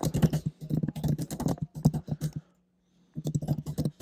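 Computer keyboard typing: a quick run of keystrokes for about two and a half seconds, a short pause, then another brief burst of keystrokes near the end.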